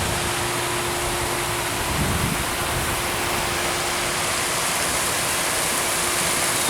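Steady rushing of a small waterfall.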